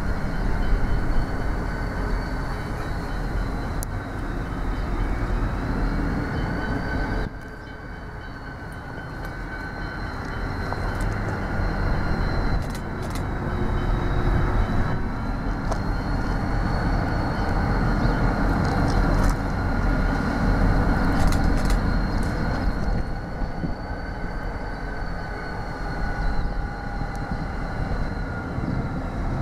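Two NSW 81 class diesel-electric locomotives hauling a wheat train slowly toward the listener: a steady low engine rumble with a thin, slowly wavering high whine over it, and a few sharp clicks from the wheels.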